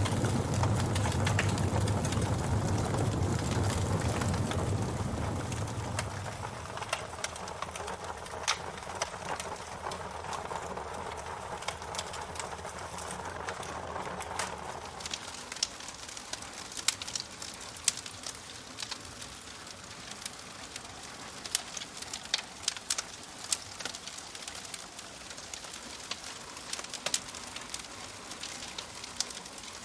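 Wood fire crackling, with sharp pops scattered throughout that stand out more from about halfway. A low rumble under the crackle fades out after the first several seconds.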